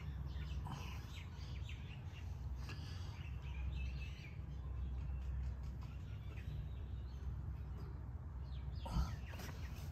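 Birds chirping now and then in the background over a steady low rumble, with a single sharp knock about nine seconds in.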